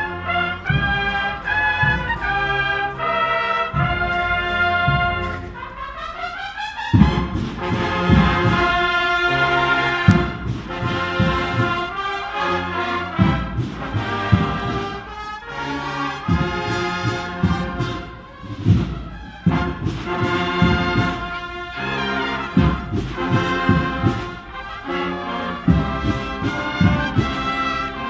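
Banda de cornetas y tambores playing a processional march: cornets carry the melody over drums and a tuba. About six seconds in, a rising run leads into the louder full band.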